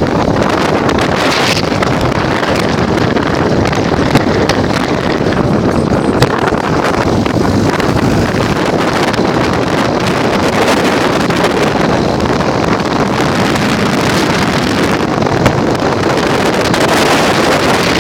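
Heavy wind buffeting the microphone from riding in an open-top dune buggy, with the buggy's engine and tyres running underneath. The sound is steady throughout.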